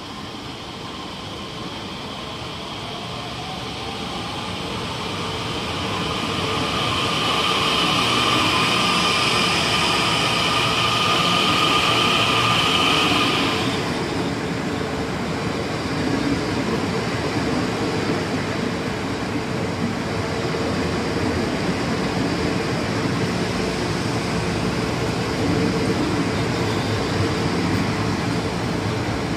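ITX-Saemaeul electric multiple unit pulling slowly into the platform and rolling past close by, its wheels rumbling steadily on the rails. A high whine builds with the approach and cuts off sharply about 13 seconds in.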